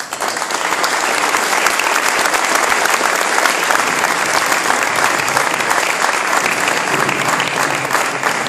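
Crowd applauding: dense, steady clapping that starts suddenly and eases slightly near the end.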